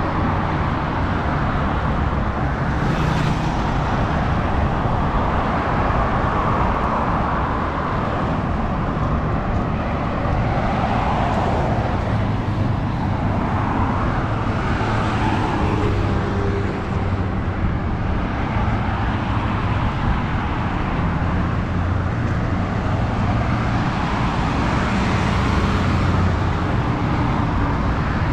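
Road traffic noise: a continuous rumble of vehicles on a busy highway, with several swells as vehicles pass.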